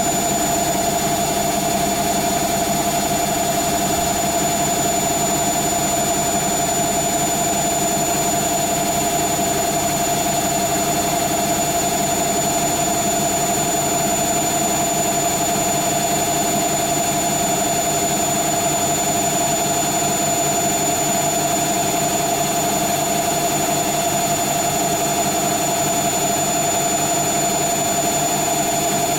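Hoover Nextra HNL71463D washing machine in its final spin, the drum turning steadily at high speed with a loud, even whine held at one pitch over a rushing hum.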